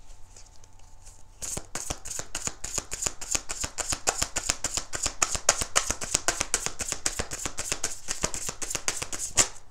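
A deck of tarot-style cards being shuffled overhand by hand: a quick run of crisp card slaps and rustles, several a second, beginning about a second and a half in.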